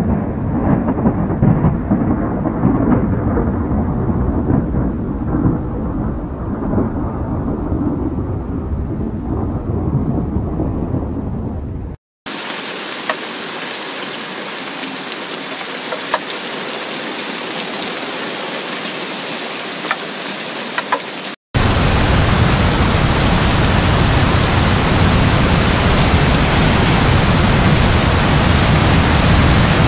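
Thunderstorm in three cuts. First a low, uneven rumble of the storm with no rain yet. Then the steady hiss of heavy rain, and last heavy rain with strong wind, louder and deeper.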